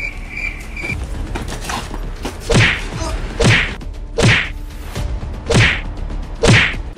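Punch sound effects in a staged beating: five loud hits about a second apart, each a swoosh falling into a thud. A short musical loop cuts off about a second in, before the hits begin.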